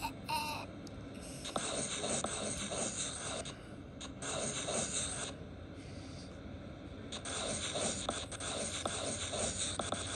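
Scratchy drawing strokes on a surface in three spells with short pauses between them, after a brief squeak at the start.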